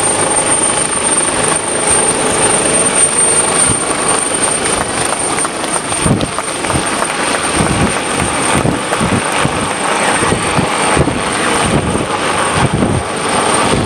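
Coastguard search-and-rescue helicopter flying low close by, its rotor and engines running steadily, with a pulsing rotor beat coming through more strongly about halfway in.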